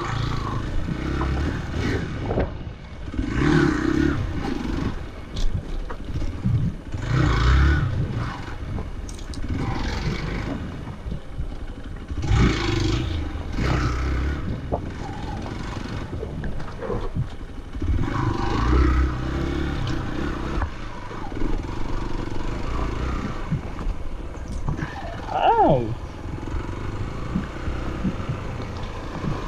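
Hero Xpulse 200's single-cylinder engine on the move, revving up in surges and dropping back every few seconds as the motorcycle rides a rough dirt trail.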